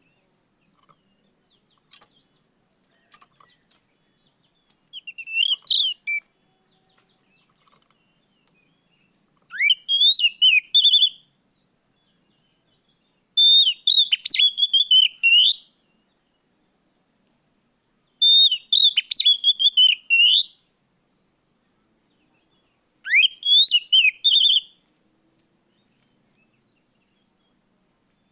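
Oriental magpie-robin (kacer) singing: five loud bursts of quick whistled phrases, each a second or two long with pauses of a few seconds between. Several of the bursts open with a rising whistle.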